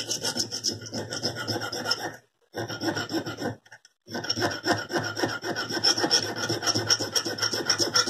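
A small hand file rasps in quick short strokes across a tiny brass knife casing made from a bullet shell, held in a vise, taking the top of the casing down. The filing stops twice briefly, at about two and about three and a half seconds in.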